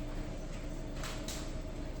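Two brief rustling or scraping handling noises, about a second in, over a steady electrical hum.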